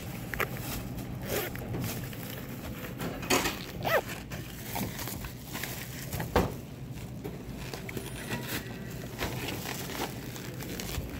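Thin plastic shopping bag rustling and crinkling as it is handled, with a few sharp knocks, the loudest about six seconds in, over a low steady hum.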